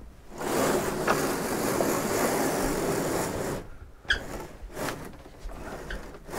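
A steady rushing hiss for about three seconds, then a few light clicks as the metal latch on the boat's overhead hardtop section is twisted open.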